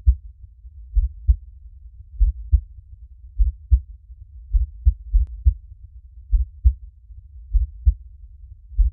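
Heartbeat, steady and slow: a deep double thump (lub-dub) repeating a little over once a second.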